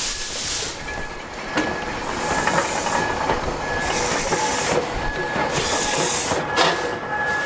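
C58 steam locomotive approaching and passing close by, tender first. Its steam hisses in repeated bursts about every second and a half, and sharp clicks from the wheels come over the rails, with a thin steady whine underneath.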